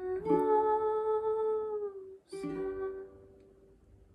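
Ukulele strummed under a woman's voice holding long, slow notes. A fresh strum and note come about two seconds in, then die away near the end as the song closes.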